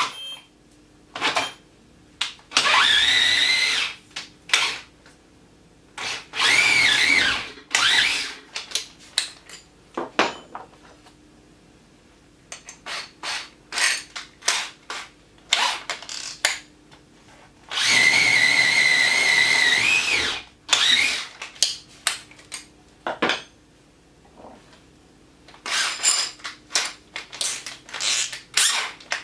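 Festool TI 15 cordless drill boring into a timber post with an auger bit: three long runs of motor whine that bends up and down in pitch under load, and many short trigger bursts in between.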